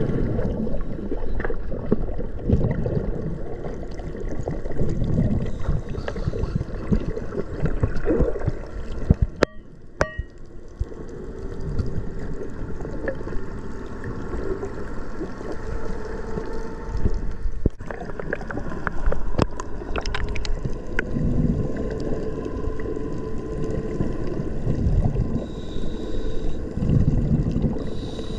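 Underwater water noise heard through an action camera's waterproof housing: a muffled, gurgling rush of water around a snorkeler kicking with fins, with a faint steady hum beneath it. The sound drops briefly about ten seconds in.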